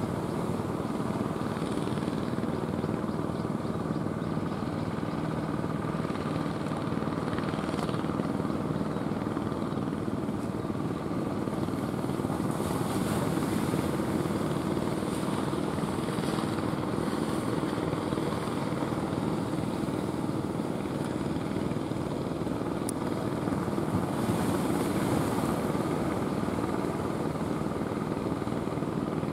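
A fishing boat's engine running with a steady drone across the water, over the wash of waves.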